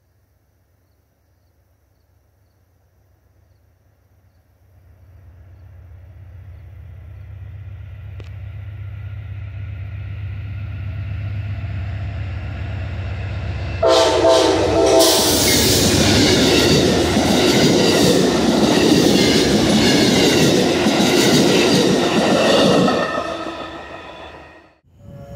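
Amtrak GE P42DC diesel locomotive approaching with a building low rumble, its horn sounding faintly at first. About halfway through the horn blows loud and long as the push-pull train passes at speed, with the roar of wheels and cars on the rails. The sound drops away sharply near the end.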